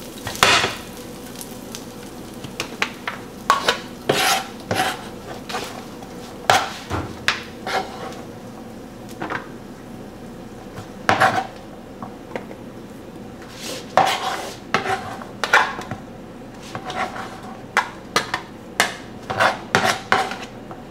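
Irregular kitchen clatter: scattered clinks, knocks and scrapes of utensils and a disposable aluminum foil pan as diced potatoes are scraped in and mixed with chicken.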